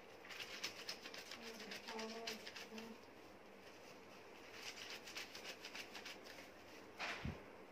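Wet, soapy cotton cloth rubbed and squeezed between the hands, a faint rapid squishing and rustling in two spells, with a short louder rub near the end.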